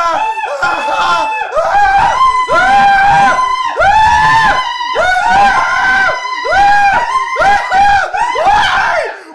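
People screaming over and over, a string of drawn-out, high-pitched yells about one a second.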